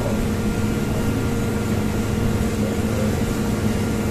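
Steady low machine hum with a few constant tones, like a running appliance or motor in a small café.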